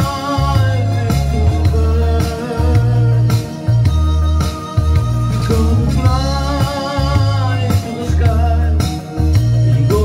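A man singing with vibrato into a microphone over a backing track with a pulsing bass line; his voice comes in near the start and again from about six seconds in.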